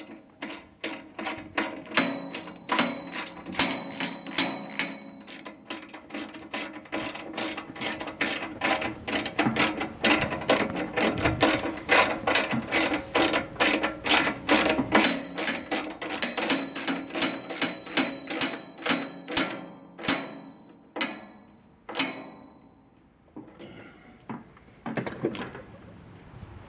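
Hand ratchet wrench clicking in quick runs of strokes as a bolt is turned, some strokes ringing with a high metallic tone; the clicking stops a few seconds before the end.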